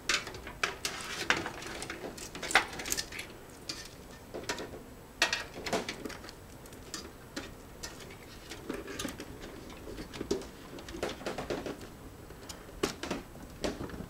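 Irregular small clicks, knocks and rattles of power-supply cables and plastic connectors against a metal computer case as a power connector is fitted to the DVD drive.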